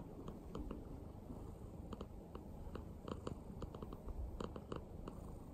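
Domestic cat purring close to the microphone: a low, steady rumble, with small soft clicks scattered over it.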